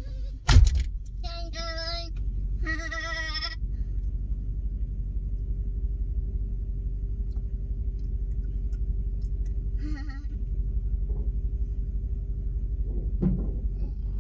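A sharp knock about half a second in, then a small child's high, wavering voice sounding twice in short bleat-like calls, and once more faintly later, over a steady low rumble inside a vehicle cab.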